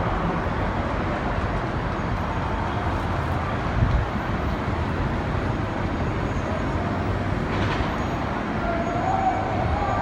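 Steady city traffic noise heard from high above a busy intersection, with a brief thump a little before 4 s. Near the end a distant siren comes in, a thin wavering tone over the din.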